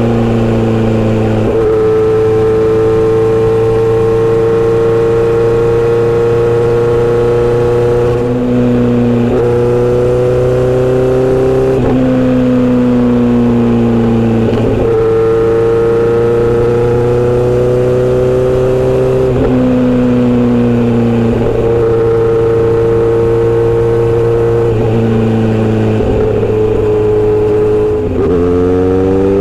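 Inline-four motorcycle engine and exhaust under way, its pitch climbing steadily and then dropping sharply, over and over, as the bike is ridden through the gears.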